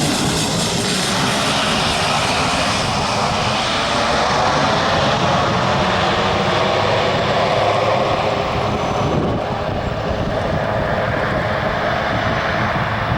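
Small fixed-wing airplane engine running at high power, loud and steady; its higher sound drops away about nine seconds in as the plane moves off.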